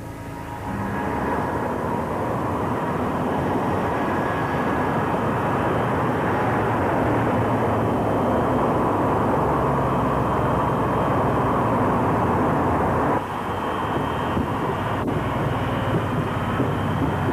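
Airplane engines running in a steady, loud drone. The drone swells up about a second in and dips briefly just after 13 seconds, then carries on.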